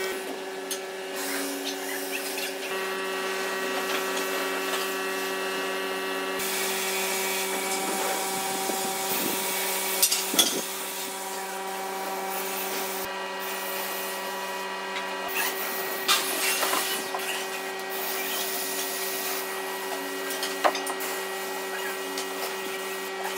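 Gravity-feed compressed-air spray gun hissing as finish is sprayed, the hiss starting a few seconds in and stopping briefly now and then as the trigger is let go, with a few sharp clicks.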